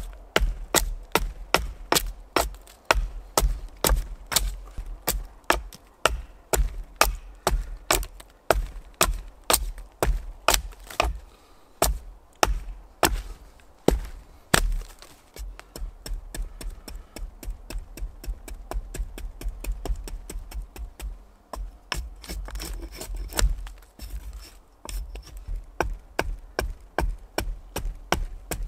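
Hatchet striking down along a debarked wooden pole held upright on a log, hewing chips off it: sharp chopping strikes about two a second, with a short lull about halfway through.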